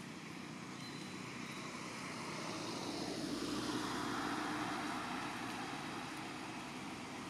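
Engine drone that swells to its loudest about halfway through, then eases off.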